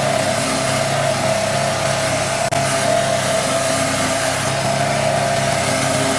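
Trâu Vàng self-propelled lawn mower's small engine running steadily, with a brief dip about two and a half seconds in.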